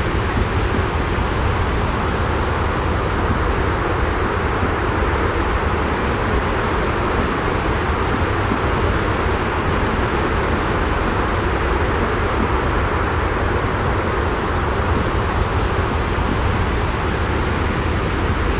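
Steady, even rumbling noise with a deep low end and a soft hiss above it: a continuous white-noise sleep track, unchanging throughout.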